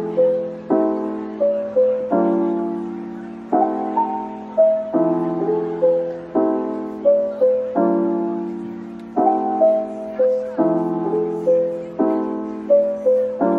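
Background piano music: soft chords struck about every second and a half, each fading away, with a simple melody on top.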